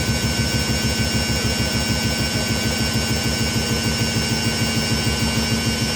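A new Indesit washing machine on its spin cycle, picking up speed, with a low pulse about five times a second under a steady whine. The machine is shaking and walking on the floor because the tub is not sitting free, which the repairman suspects comes from transport bolts left in at the back.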